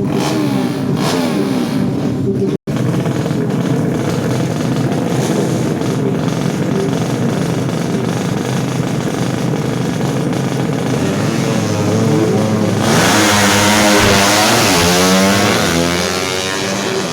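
Tuned 200cc four-stroke underbone drag-racing motorcycles running and revving hard. Near the end a bike accelerates and gets louder, its engine pitch rising in repeated sweeps as it goes up through the gears.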